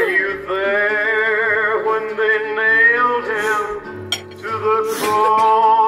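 British bulldog howling along to music: one long howl with a wavering pitch lasting about three seconds, then a second howl starting about five seconds in.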